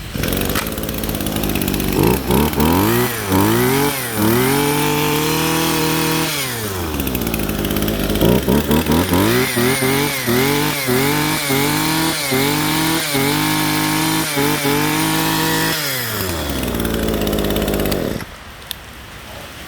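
Brush cutter engine being revved with the throttle: it revs up, drops back, then is blipped up and down about twice a second before the revs fall away near the end.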